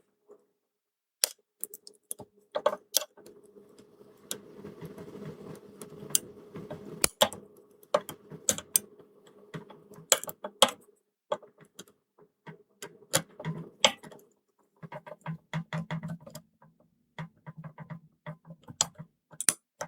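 Lock picks working inside a Belfry pipe-key padlock: irregular small metallic clicks and scrapes as the tool and tensioner move against the internals, with a faint steady hum behind them for stretches.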